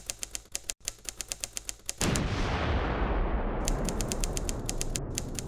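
Typewriter key clicks, a sound effect for on-screen text being typed out letter by letter, about seven clicks a second. About two seconds in a loud noisy hit cuts in and fades slowly, and the rapid clicking starts again over its tail.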